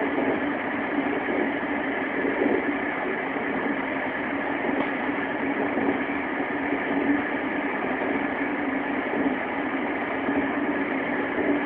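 Running sound inside a JR West 225 series electric train at speed: a steady rumble of wheels on rail with a steady low hum.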